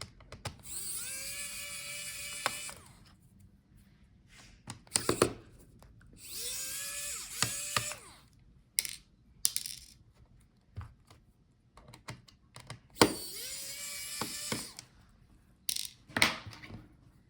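Small electric screwdriver backing out laptop motherboard screws. It runs three times for about two seconds each, with a whine that rises as it spins up and then holds steady. Sharp little clicks of screws and parts being handled come between the runs.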